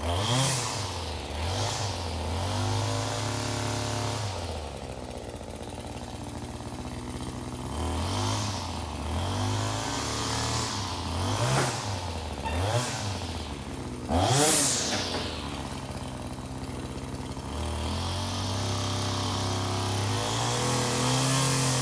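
Small two-stroke engine blipped repeatedly on the throttle, each rev rising and falling back, then running steadily at idle for the last few seconds.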